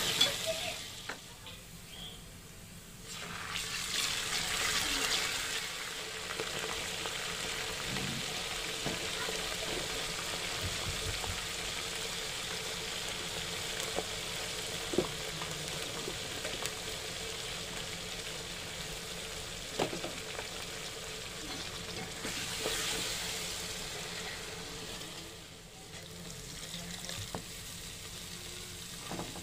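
Sliced onions sizzling in hot oil in an aluminium pressure cooker, stirred with a steel ladle. The sizzle swells and eases, with a couple of sharp clinks of the ladle against the pot.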